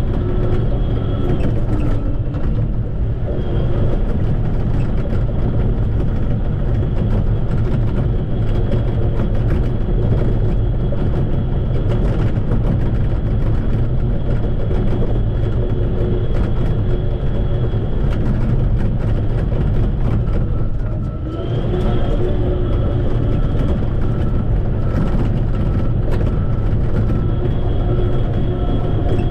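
Shantui bulldozer's diesel engine running steadily at work, a heavy low rumble with a thin high whine over it. The sound drops briefly about two-thirds of the way through, then picks up again.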